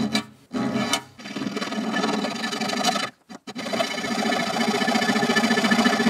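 Metal file-and-saw blade of a Victorinox Swisstool Spirit XBS multitool rasping rapidly back and forth across the edge of a steel sheet about 2–3 mm thick, biting into it and wearing away metal. The strokes pause briefly a few times in the first three seconds, then run on steadily.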